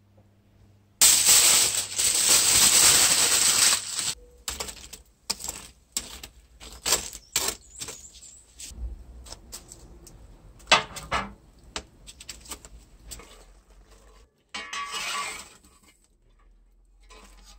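A loud rushing hiss for about three seconds, then a metal fire shovel and rake scraping and clinking through glowing wood embers and ash on the floor of a built-in brick barbecue, with many sharp clicks and another short hiss near the end.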